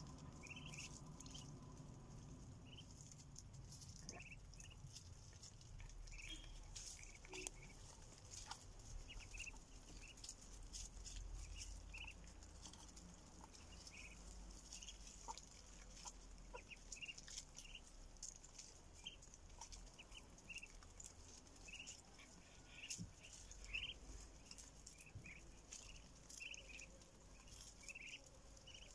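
Ducklings peeping faintly in short high chirps, repeated throughout, with light clicks and taps of bills pecking at corn on concrete.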